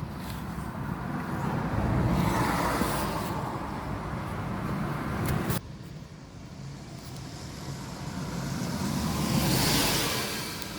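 Car and road-traffic noise, swelling and fading twice as vehicles pass, with an abrupt drop in level about five and a half seconds in.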